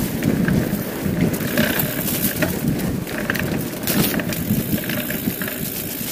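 Mountain bike riding fast down a dirt singletrack: a steady rush of tyre and wind noise on the microphone, with scattered knocks and clicks from the bike over the bumps.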